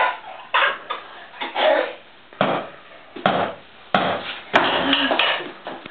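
A hammer banging repeatedly, about seven irregular knocks, each ringing briefly.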